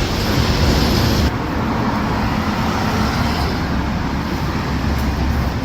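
Steady urban road traffic: passing cars and engine rumble. The higher hiss eases off about a second in.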